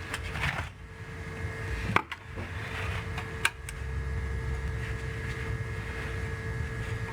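Two sharp clicks about a second and a half apart, from handling parts of a television being taken apart, over a steady low hum.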